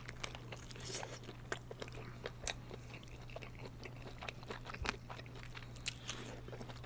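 Two people biting into and chewing kielbasa sausage close to a microphone: a run of faint, irregular mouth clicks and smacks over a steady low hum.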